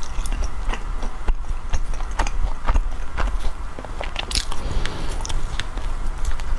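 Close-miked biting and chewing of soft matcha bread with a cream and raisin filling. Irregular mouth clicks and smacks come at an uneven pace.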